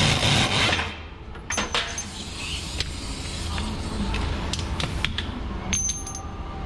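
Truck running with a steady low rumble. A loud hiss in the first second cuts off sharply, then scattered clicks and rattles follow, with a few short high squeaks near the end.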